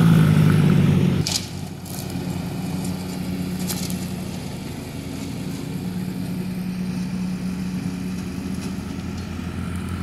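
Honda CRF50 mini dirt bike's small single-cylinder four-stroke engine running, loud as the bike passes close, then dropping suddenly about a second in to a fainter, steady note as it rides away across the yard, and growing louder again near the end.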